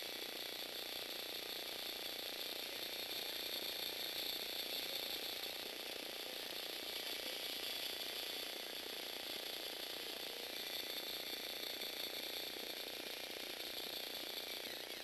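Lego Technic four-legged walking robot's electric motor and plastic gear train whirring steadily as it drives the legs.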